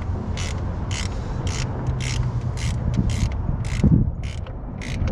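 Ratchet wrench with a socket clicking in short back-and-forth strokes, about two a second, as a 10 mm bolt is run down.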